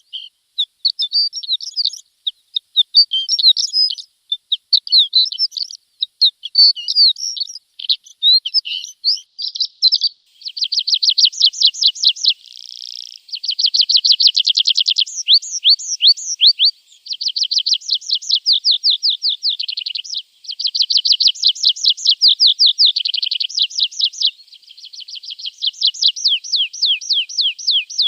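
Javan bush lark (branjangan) singing: quick, varied chirping phrases for the first ten seconds or so, then long runs of rapid, evenly repeated high trilled notes.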